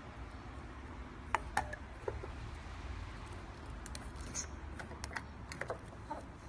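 Hard plastic vacuum storage container being closed by hand: two sharp plastic clicks, then a scatter of lighter clicks and taps as the push-button cap is pressed down onto the jar.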